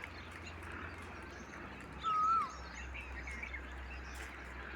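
Birds calling: one clear whistled note that dips at its end about two seconds in, with softer chirps around it, over a steady low hum.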